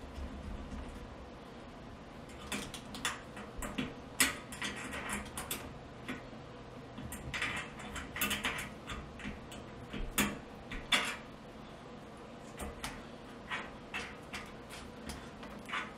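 Irregular small metallic clicks and scrapes, in scattered clusters, as LP burner orifices are threaded into a gas range's cooktop burner base by hand and snugged with a small 7 mm wrench.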